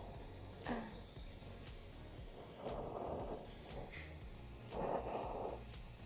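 Brazing torch flame hissing steadily while it heats a copper pipe joint, with two brief louder rushing swells about two and a half and five seconds in.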